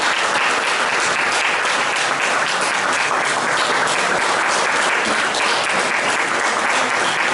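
Audience applauding, a dense, steady patter of many hands clapping without a break.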